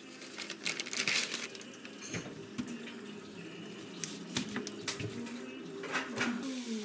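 Crinkling of a plastic bag and stiff, dry rice paper sheets being pulled out and handled, in crackly bursts.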